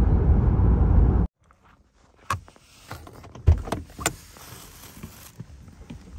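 Steady noise of a car driving along a road, which cuts off suddenly about a second in. Then a few clicks and one sharper clunk as the car's inside door handle is pulled and the door unlatches and opens.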